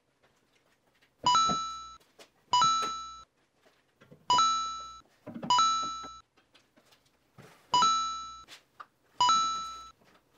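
Six bell-like chime notes, each struck and fading out within about a second, falling in three pairs with dead silence between: sparse music laid over the footage.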